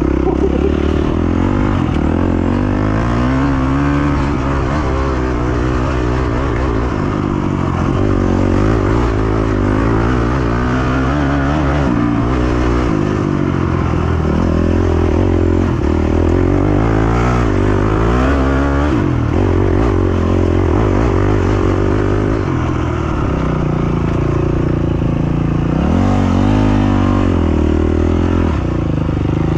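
Honda 250 four-stroke enduro motorcycle engine ridden hard, its pitch climbing and dropping over and over with the throttle and gear changes.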